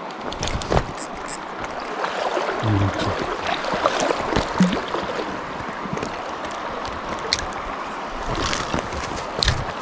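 Steady rush of flowing river water, with scattered small clicks and a few soft knocks from handling gear.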